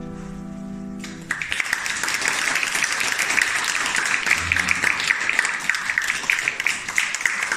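The last chord on a grand piano rings and fades. About a second in, an audience starts applauding, and the clapping carries on steadily.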